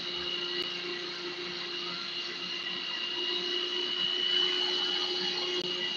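Food processor motor running steadily with a continuous whine, blending basil pesto.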